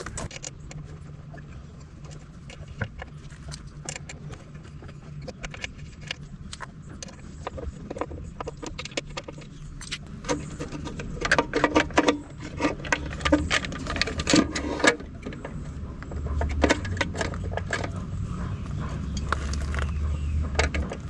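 Light metallic clicks, clinks and scrapes of an Allen wrench turning out the screws of an e-bike battery mounting plate, with loose screws and the plate being handled. They are busiest around the middle. Under them runs a steady low hum of traffic.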